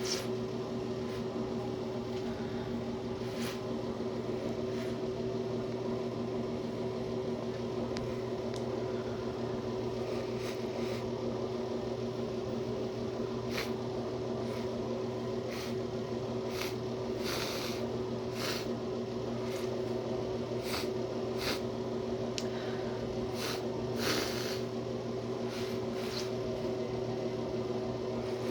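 A person with a thick, snotty runny nose sniffling: short wet sniffs, few at first and then about one a second through the second half, over a steady electrical hum.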